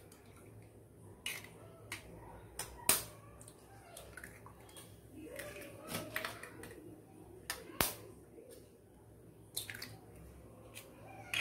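Eggs being cracked by hand into a small bowl: a series of sharp cracks and taps of eggshell, the loudest about three seconds in and again near eight seconds, with the soft drop of egg into the bowl between them.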